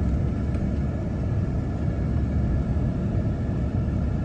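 Car engine and tyres making a steady low rumble, heard from inside the cabin while the car drives slowly.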